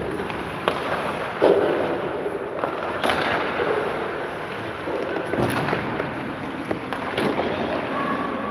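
Ice hockey rink noise: scattered sharp knocks and clacks of hockey sticks and skates on the ice and boards, over a steady background hum of the arena.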